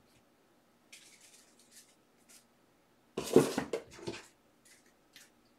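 Trading cards and plastic card sleeves being handled on a desk: light sliding and rustling, with one louder, short handling noise a little over three seconds in.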